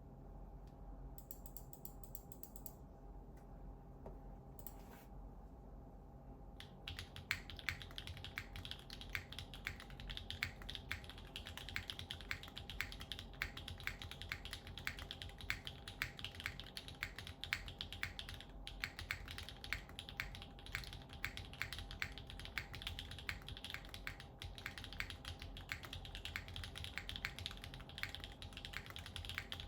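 Typing on a custom mechanical keyboard with Gateron Summertime v2 switches, a polycarbonate plate and GMK keycaps: quiet for the first six seconds or so, then fast, continuous keystrokes.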